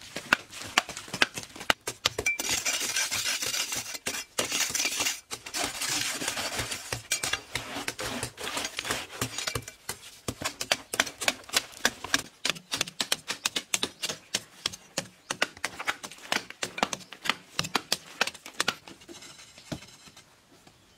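Hand digging tools chopping into hard, dry earth: a rapid, uneven run of sharp strikes from more than one worker, with scraping of loosened dirt in between. The strikes thin out and fade near the end.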